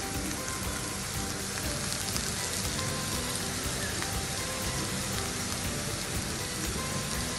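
Sliced potatoes sizzling in mustard oil in a kadhai: a steady crackling hiss with fine pops. Soft background music plays underneath.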